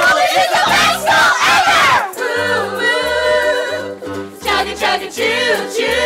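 Group of voices singing an upbeat song over instrumental backing with a bouncing bass line. For about the first two seconds the voices are louder and slide in pitch before settling into held notes.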